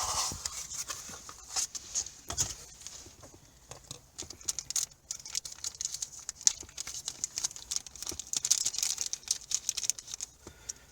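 Plastic packaging crinkling and rustling as it is handled, with many small irregular clicks, while the new replacement bulbs are taken out.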